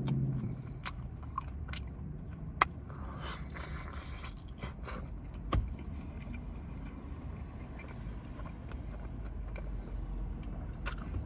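Eating close to the microphone: chewing and biting, with scattered sharp clicks and smacks.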